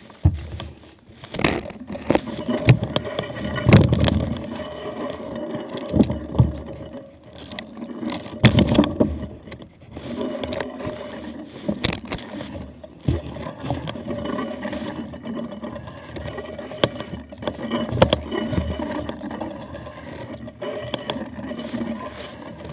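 Wind buffeting the camera microphone in irregular gusts, with scattered clicks and knocks from a mountain bike being pushed on foot through mud.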